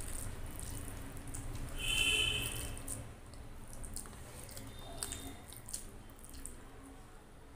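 A hand mixing rice with kadhi on a steel plate, with wet squishing and many small clicks of fingers on the metal, along with chewing. A brief high-pitched tone sounds about two seconds in.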